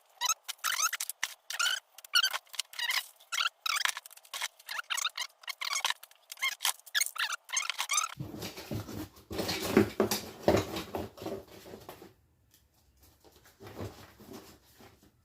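Paper rustling and crinkling as loose papers and magazines are handled: dense quick crackles for about eight seconds, then a fuller rustle that dies away about twelve seconds in.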